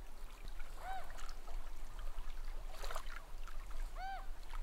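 Harbour ambience: a steady wash of water with a low hum, broken by two short pitched squawks, about a second in and again about four seconds in, and a knock near the middle.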